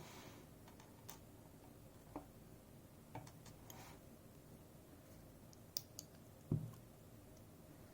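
Small metal lock parts clicking and tapping, the handling of a disassembled safe deposit lock's pins, springs and cylinder. Scattered faint clicks, with a louder, duller knock a little past the middle.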